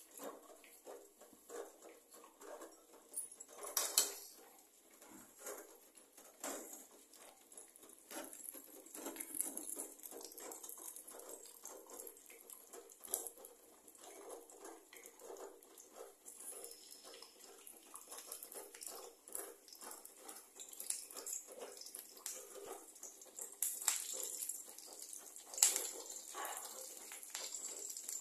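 Cumin and mustard seeds crackling in hot oil in a wok: a sizzle with scattered sharp pops that grows steadier after about eight seconds, with a louder knock about four seconds in.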